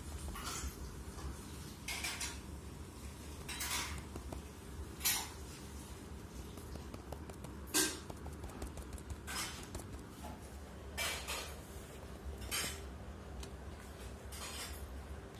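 Light taps and clinks, about a dozen, unevenly spaced roughly a second apart, over a low steady hum.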